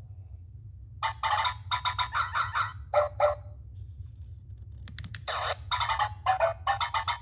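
Hasbro 2005 I-Dog robot toy giving out quick strings of high-pitched electronic chirps from its speaker, in two runs, the first starting about a second in and the second about five seconds in. A few sharp clicks sound between the two runs.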